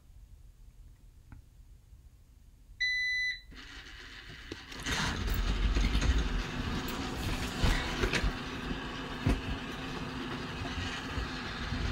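A single short electronic beep about three seconds in, then a steady noise with a low rumble that swells up about a second later and carries on, with a few sharp knocks in it.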